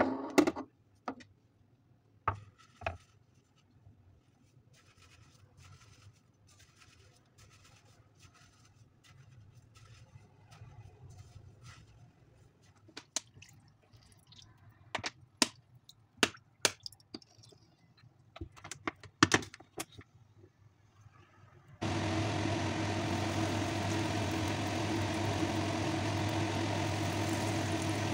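Scattered clicks and knocks of food being handled, then, about three-quarters of the way through, a sudden steady loud sizzle: breaded eggplant deep-frying in hot oil.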